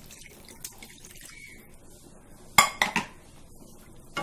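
Water poured from a bowl into a kadai of potato curry and stirred in with a wooden spatula. About two and a half seconds in, three sharp knocks in quick succession as utensils strike the pan.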